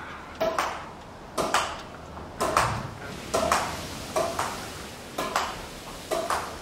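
Badminton racket strings striking a shuttlecock, and the shuttle hitting a wall, in a steady rally: quick pairs of sharp hits about once a second, some with a short ping from the strings.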